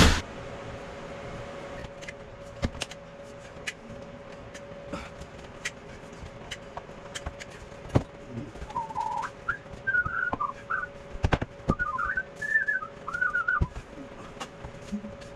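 Someone whistling a short wavering tune for about five seconds in the second half, among sharp knocks and clicks of wood and tools being handled. A steady low hum runs underneath throughout.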